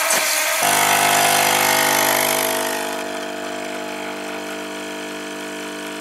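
Nespresso Lattissima+ capsule machine making a cappuccino: its pump starts humming steadily about half a second in, while the hiss of the milk frother fades away over the next couple of seconds, as the machine moves from frothing the milk to pouring the coffee.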